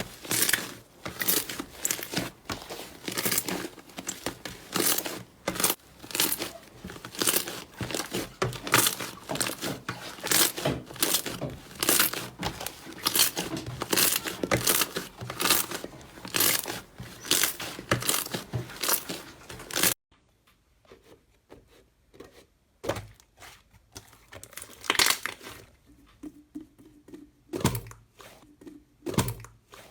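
Slime being squeezed and worked by hand, making dense, fast crackling and crinkling pops. About twenty seconds in it cuts to a quieter clip with sparser crackles and a few louder pops.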